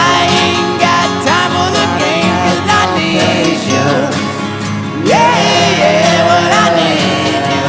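Background music: a country-style song with guitar and a steady beat.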